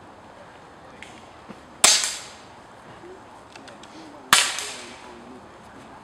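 Two air rifle shots about two and a half seconds apart, each a sharp crack with a short fading tail.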